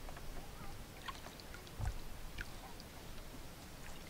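Faint lakeside sounds: light splashes and scattered small knocks as a person sits down on a wooden dock and dips her feet in the water, with a soft thump about two seconds in.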